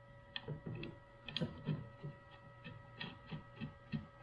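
Light, irregular metal clicks and knocks, a few a second, as the carrier is hand-fitted onto a ballscrew and ball-nut assembly and its bolts are started loosely. A faint steady hum with a thin high whine runs underneath.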